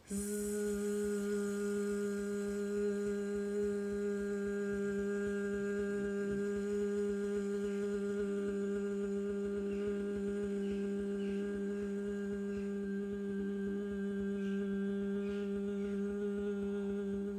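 A voice humming one steady low note, held unbroken at the same pitch for about seventeen seconds and then stopping abruptly.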